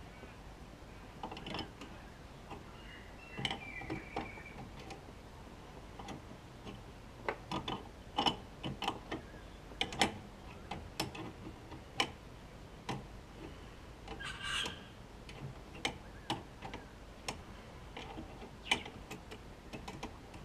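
Metal hand tools clicking and tapping on an external wastegate's fittings in a car's engine bay: scattered sharp clicks, a few close together, as a wrench loosens and refits the wastegate so it seats properly.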